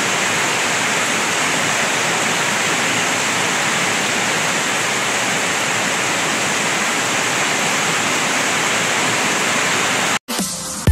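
Heavy typhoon rain pouring down steadily on a flooded street and roofs, a dense even hiss that cuts off abruptly about ten seconds in.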